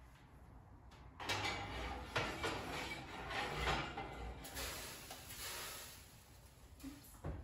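Metal oven racks and baking pans scraping and clanking for several seconds as pans are slid into a hot oven, ending with a knock near the end as the oven door closes.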